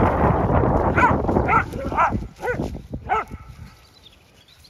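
Dogs playing rough together, one giving about five short, sharp barks or yips roughly half a second apart. Wind rumbles on the microphone through the first couple of seconds, then dies down.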